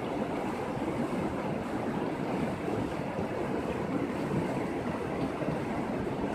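Shallow, rocky mountain river flowing fast over stones: a steady, even rush of water.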